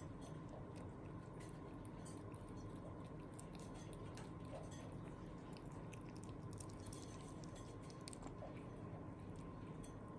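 Faint, irregular crunchy clicks of a pet chewing food, over a steady low hum.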